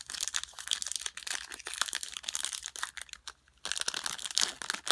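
Crinkling of a trading-card pack's wrapper as the cards are handled: a run of quick rustles and small clicks, busiest near the end.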